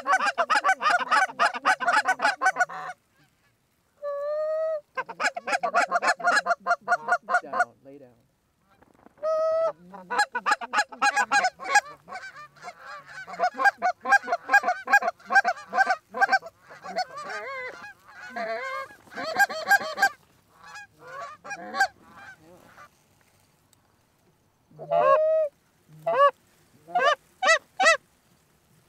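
Canada geese honking and clucking in dense runs of rapid calls, broken by short gaps, then a few separate honks near the end.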